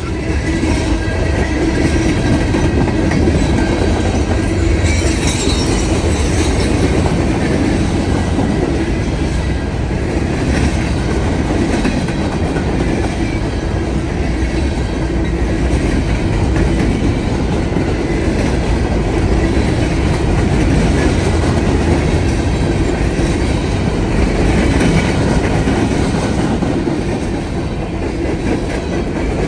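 Freight train hopper cars rolling past close by at speed: a steady rumble of steel wheels on rail, with a clickety-clack of wheels over rail joints and the crossing.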